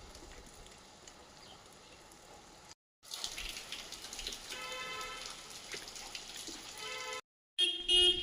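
Rain falling in a steady patter, cut off twice by brief silences. Pitched calls sound over the rain about halfway through and again near the end, loudest just before the end.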